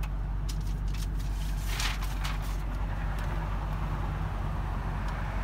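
The supercharged 5.4-litre V8 of a 2000 Ford F-150 SVT Lightning idling steadily, with a few light clicks and a brief rustle about two seconds in.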